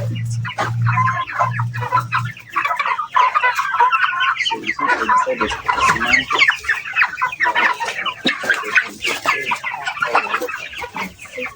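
A large flock of chickens in a chicken house clucking together, many overlapping calls throughout. A low pulsing hum underneath fades out about two seconds in.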